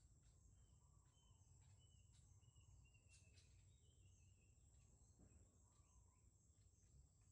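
Near silence: faint outdoor ambience, a steady high-pitched insect drone with a few faint bird chirps.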